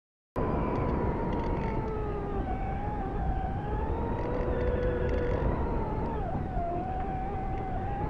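Saffron electric model glider's motor and propeller whining, with a steady rush of wind over the onboard camera. The whine cuts in just after the start and wanders slowly up and down in pitch.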